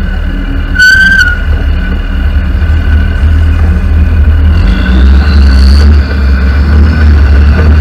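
Semi-truck driving, a loud steady low rumble of engine and wind on the truck-mounted microphone. A brief high squeal about a second in, and a rising whine around five seconds in.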